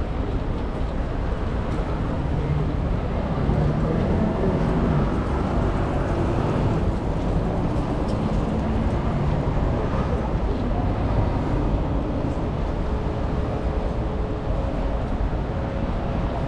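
Steady low rumble of city traffic under a park's open-air ambience, with faint distant voices.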